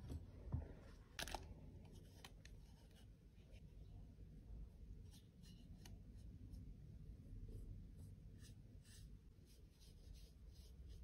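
Faint handling of plastic cosmetic compact cases. A few light clicks and taps come in the first couple of seconds, followed by soft scratchy rubbing and scattered small ticks.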